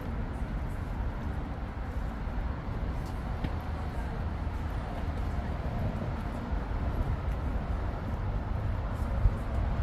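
City street traffic noise: a steady low rumble of passing cars, with a short sharp knock about nine seconds in.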